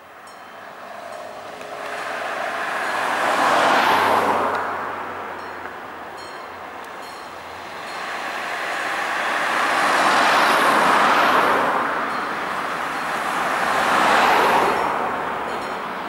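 Cars passing close by on the road one after another, three swells of tyre and engine noise that rise and fade, the last two close together. Faint short repeated ringing tones from the level crossing's warning bell come through in the quieter moments.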